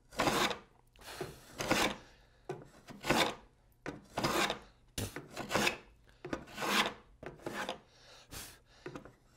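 Wooden moving fillister plane cutting a rabbet along the edge of a board: repeated rasping shaving strokes at a steady pace, about one a second. Near the end the strokes grow lighter as the plane reaches full depth and stops cutting.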